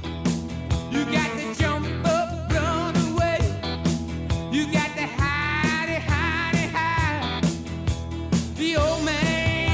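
Background rock song with a singing voice over a steady drum beat.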